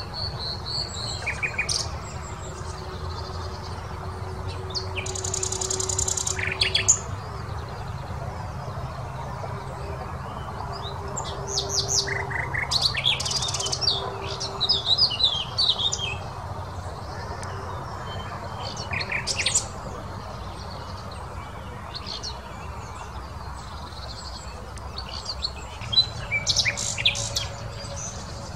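Common nightingale singing: short, varied phrases of high whistles, rapid trills and a buzzy rattle, separated by pauses of a few seconds.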